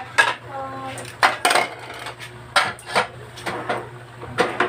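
Metal clinks and knocks against a stainless steel cooking pot as leafy vegetables are mixed in it: about seven sharp strikes spread across a few seconds.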